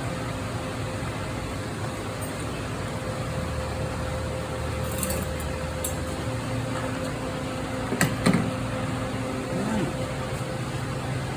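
Steady hum of an air conditioner with a faint whine, broken by a few light clicks and a louder pair of knocks about eight seconds in, from work on an engine teardown.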